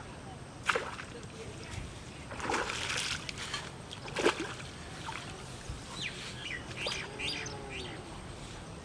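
Water splashing, with two sharp slaps about a second in and about four seconds in, and birds chirping in the background near the end.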